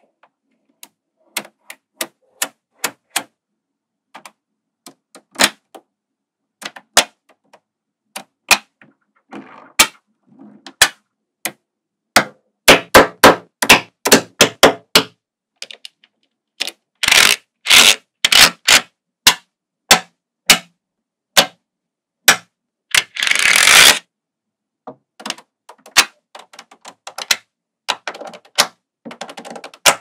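Small neodymium magnetic balls clicking sharply as they snap onto one another, layer on layer. Single clicks at first, then a quick run of clicks in the middle, with short rattling clatters as whole sheets of balls settle and one longer rattle near the end.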